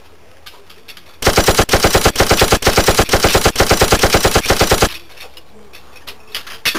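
Machine-gun sound effect: a rapid run of shots, about ten a second, lasting nearly four seconds, starting and stopping abruptly.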